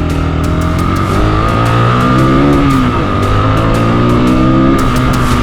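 Rock music with a steady drum beat and guitar, with a Rieju Aventura 125 motorcycle engine running underneath.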